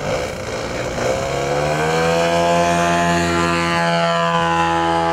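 A large RC model plane's engine throttling up: its pitch climbs over about a second, then it holds a steady high-revving note at full throttle.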